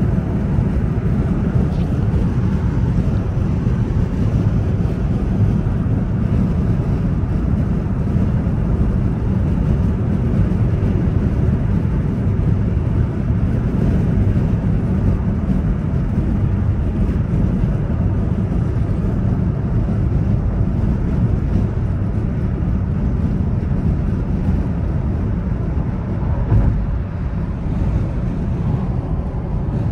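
Steady low rumble of a car on the move, with road and engine noise heard from inside the cabin.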